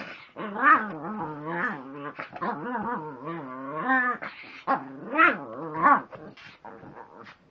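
Small long-haired dog growling in play, in long wavering grumbles that rise and fall in pitch, with a few louder bursts, then trailing off near the end.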